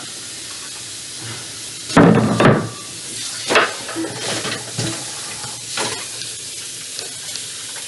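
Dishes and utensils clattering in a stainless-steel kitchen sink: one loud clatter about two seconds in, then several lighter knocks, over a steady hiss.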